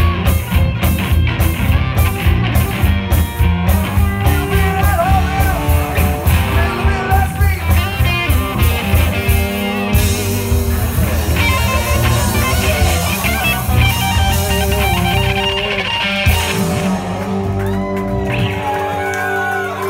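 Live rock band playing: electric guitar and electric bass over drums, with a strong steady drum beat in the first few seconds, then guitar lines, and held notes near the end.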